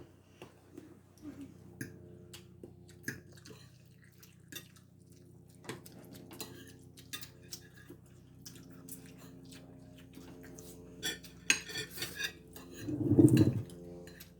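Spoon and fork clinking and scraping against a plate or bowl in scattered taps while food is mixed and eaten, over a steady low hum. A louder muffled sound comes near the end.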